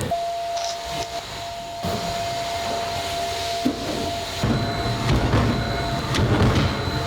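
Food-factory machinery running: a steady whine over a noisy rumble with scattered knocks and clatter. The sound changes abruptly about two seconds in and again past the middle, with a heavier rumble in the second half.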